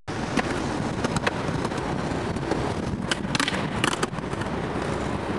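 Skateboard wheels rolling on concrete, with scattered sharp clacks of the board and trucks and two brief scrapes about three and four seconds in as the board works a stone ledge.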